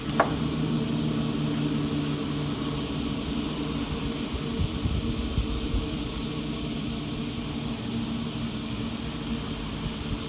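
Suzuki Wagon R MH21S under way, with a steady droning hum over road rumble: the noise of a worn rear hub bearing, which the mechanic takes for the typical hub bearing fault. There is a click right at the start.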